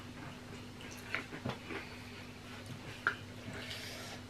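Quiet chewing and mouth noises of people eating, with a few light clicks of spoons and forks on plates, the sharpest about halfway through and again near the end. A steady low hum runs underneath.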